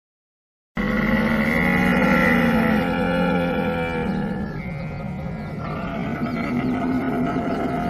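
A camel calling: a long, low, rough call with many harmonics that starts abruptly about a second in and carries on without a break, shifting in tone about halfway through.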